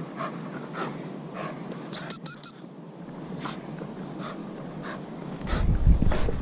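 Four quick, shrill pips on a gundog whistle about two seconds in, the usual multiple-pip recall signal to a spaniel. Underneath, a faint, regular swish of footsteps through dry tussock grass, and a low rumble of wind or handling noise near the end.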